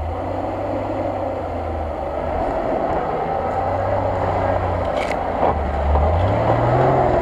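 Nissan Patrol 4x4's engine pulling steadily as it crawls over rough sandy off-road ground close by, the engine note rising in pitch about six seconds in as it is given more throttle. A single short click about five seconds in.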